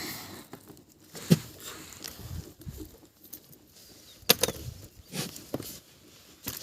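Handling noise: a few sharp knocks or taps, about a second in, past four seconds and near the end, with soft rustling and shuffling in between.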